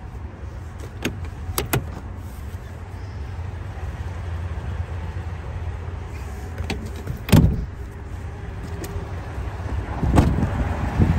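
Handling noises from a pickup's rear cab over a steady low rumble: a few light clicks, then a sharp thud about seven seconds in, and heavier thumps near the end as the rear door is opened and shut.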